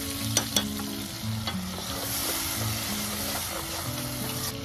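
Tomatoes sizzling in a pot on a portable camp stove, with two sharp clicks about half a second in as a metal spoon taps the pot, then stirring with a wooden spoon.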